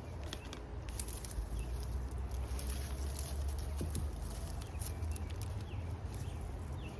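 Scattered crackling and rustling of dry garlic stalks and soil as hardneck garlic bulbs are pulled and handled, over a low steady rumble.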